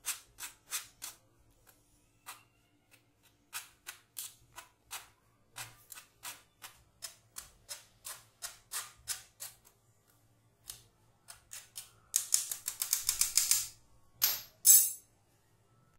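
Metal spoon scraping and tapping gram flour through a stainless steel mesh strainer, a string of short scrapes about two or three a second. About twelve seconds in comes a quick rapid rattle, then two louder knocks.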